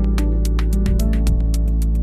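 Background music: synthesizer-led electronic track with sustained notes, a heavy bass and a quick steady beat.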